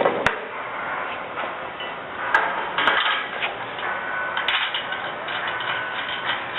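A few sharp metal clicks and taps as steel bolts with washers are fitted through a pallet rack foot plate, over a steady background hiss.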